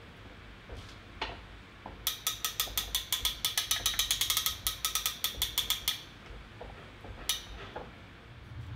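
Ratchet pawl clicking over the toothed wheel of a hand crank on a homemade hydraulic press frame. The fast, even clicks come about nine a second for some four seconds, starting about two seconds in, and one lone click follows about a second later.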